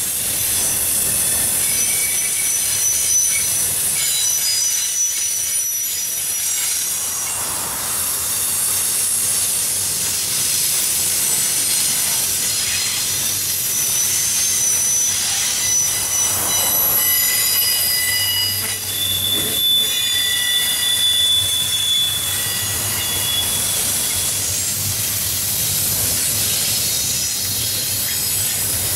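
Intermodal freight cars rolling past close by: a steady rush of steel wheels on rail, with thin high-pitched wheel squeals that come and go over it.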